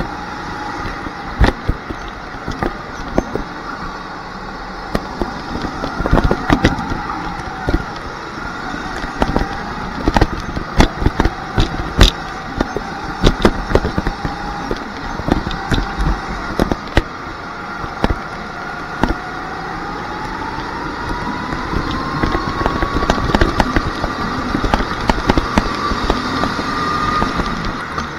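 Rental go-kart heard from on board while racing: a steady motor whine that wavers with speed through the corners, then climbs in pitch over the last several seconds. Frequent sharp knocks and crackles sound over it.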